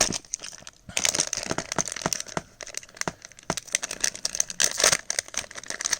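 Plastic blind-bag packaging being crinkled and handled as it is opened by hand, with many small sharp clicks and crackles and a brief pause about half a second in.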